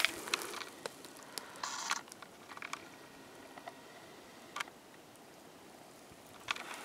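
Footsteps and rustling on the ground: a few steps and a brief rustle in the first two seconds, then a lull with scattered faint ticks, and steps start again near the end.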